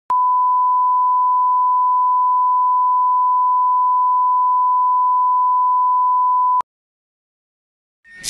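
Steady 1 kHz reference test tone played with colour bars, cutting off after about six and a half seconds, followed by silence. A burst of noise starts to swell in just before the end.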